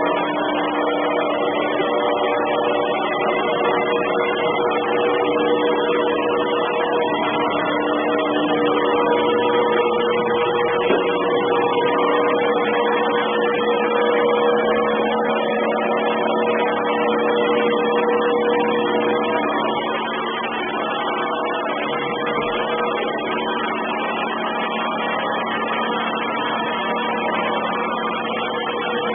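Robot vacuum cleaner running, its motors giving a steady, distorted whine. The pitch of the whine shifts about a third of the way through, and the sound gets slightly quieter about two-thirds of the way in.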